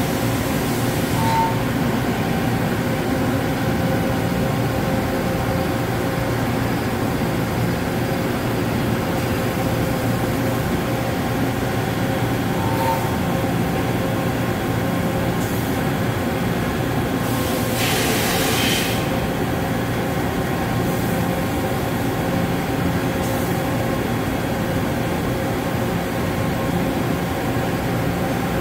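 A 5-axis CNC machine running steadily while machining a titanium part, a dense mechanical drone with several steady tones. Short hissing bursts break in a few times, the longest about halfway through.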